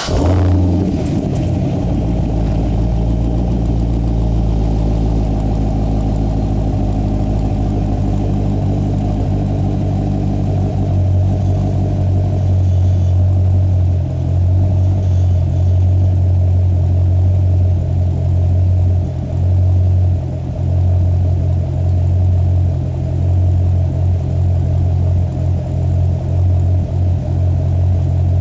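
Chevrolet Corvette C6 Z06's 7.0-litre LS7 V8 idling steadily just after start-up, a deep note heard at the tailpipes of a Borla S-Type exhaust with X-pipe.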